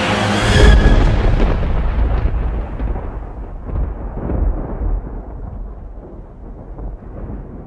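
Closing music breaks off in a loud, deep boom about half a second in. A long rumble follows, growing steadily duller and quieter.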